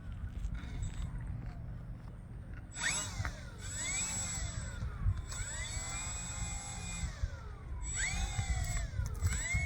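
Electric motors of an RC model seaplane whining through short throttle run-ups, the pitch rising and falling with each burst, with wind buffeting the microphone.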